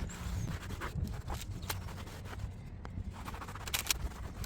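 A cloth wiping and scrubbing on a car's interior trim, cleaning off scuffs: a run of short rubbing and scraping strokes over a low steady hum.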